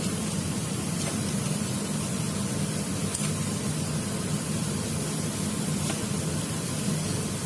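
Steady hiss with a low hum underneath and a few faint clicks.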